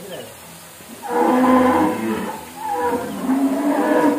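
Dairy cow mooing: one long call starting about a second in, then a second long call that rises slightly in pitch near the end.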